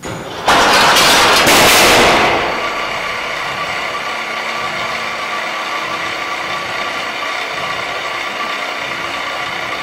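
A small wheeled test cart rolling down a metal ramp with a loud rattling rumble and striking an energy-absorbing road barrier about two seconds in. Then a steady whir with several fixed tones holds on, from the barrier's mechanism, which turns the impact into rotating motion.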